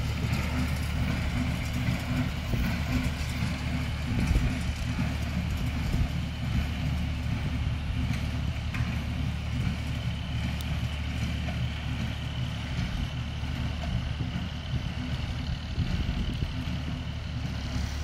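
Bolinder-Munktell tractor engine running steadily while pulling a Rivière Casalis medium-density hay baler that is working as it goes.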